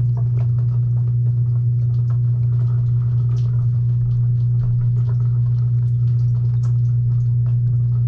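Frigidaire Gallery dishwasher's pump motor running with a steady low hum, heard from inside the tub. Scattered small ticks and patter of water spray and droplets hitting the camera sound over it.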